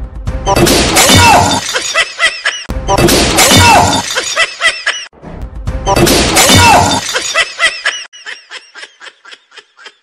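An edited sound effect: the same loud burst of noise with sweeping tones plays three times in a row, each about two seconds long. It is followed by a run of short, quick ticks, about three a second.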